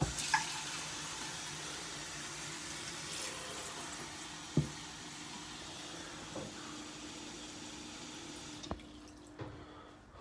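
Kitchen tap running into a sink, filling a container with water for a cat, with a few knocks of the container against the sink. The water shuts off about a second before the end.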